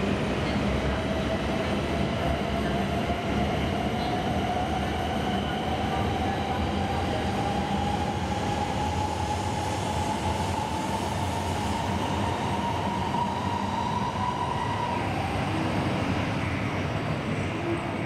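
Coupled E5 and E8 series Shinkansen trainset departing a station, with a steady rolling rumble and a motor whine that rises slowly in pitch as the train gathers speed, fading out near the end.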